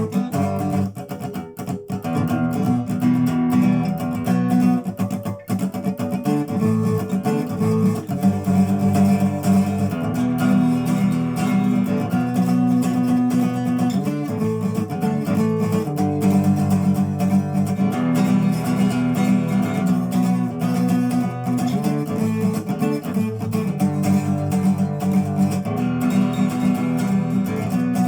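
Soviet Lunacharsky-factory Ovation-style acoustic guitar with a solid spruce-type top being strummed, chords ringing and changing every second or two.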